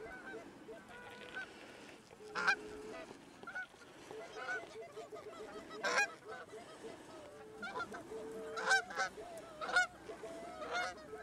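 Canada geese honking over and over, with several louder, sharper honks scattered through and a few drawn-out lower notes.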